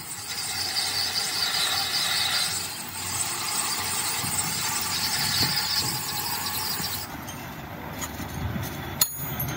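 Metal lathe turning the rim of a spinning metal pulley: a steady cutting noise that drops away about seven seconds in, leaving a quieter machine hum. A sharp click comes near the end.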